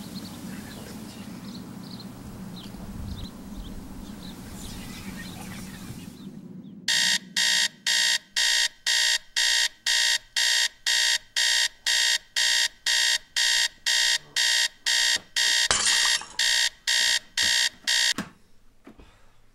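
Electronic alarm clock beeping about twice a second, each beep a shrill multi-tone pulse. It starts about seven seconds in and cuts off abruptly about eleven seconds later. Before it there is only a low, steady background noise.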